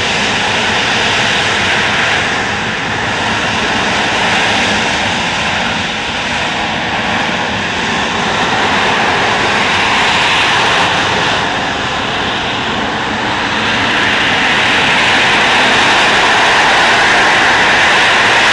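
A Harrier jump jet's Rolls-Royce Pegasus vectored-thrust turbofan running loudly as the jet hovers: a steady, rushing jet noise that grows a little louder over the last few seconds.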